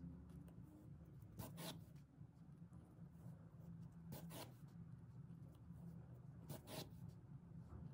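Wool yarn rasping as it is drawn through a rug's edge while the edge is being overcast by hand with a needle: three faint double swishes, one for each stitch pulled tight, about two and a half seconds apart, over a low steady hum.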